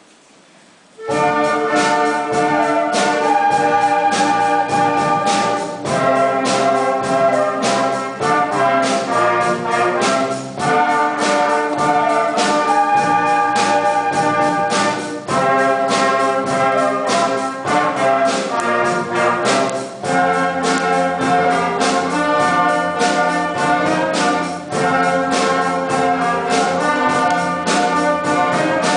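Youth wind band playing a rock-style piece, brass to the fore over a steady drum beat. The band comes in together about a second in, after a brief hush.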